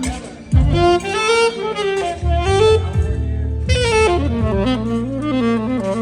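A saxophone playing a flowing jazz melody of quick, changing notes over a bass accompaniment.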